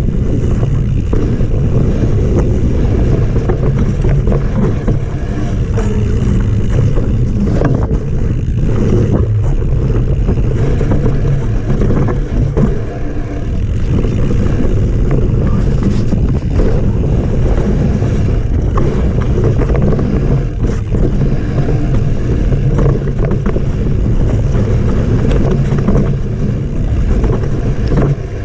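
Steady wind rumble on the microphone of a chest-mounted camera on a moving mountain bike, mixed with tyre noise on a dirt trail and scattered knocks and rattles from the bike over rough ground.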